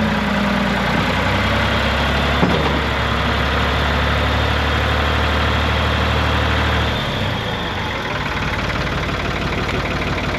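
Tractor engine idling steadily. About seven seconds in its note changes and it gets a little quieter.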